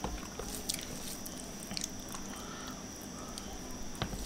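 Close-miked eating sounds: chewing and scattered soft mouth clicks while fingers pick at rice and food on a tray. A faint steady high-pitched tone runs underneath.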